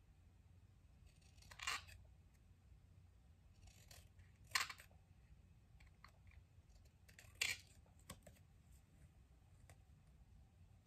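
Scissors cutting paper: three distinct snips about three seconds apart, each with a soft rustle just before, and a few faint clicks in between.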